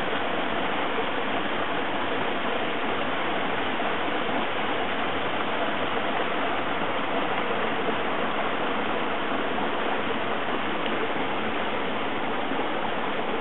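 Steady rush of water from a small waterfall pouring into a pool of a mountain stream.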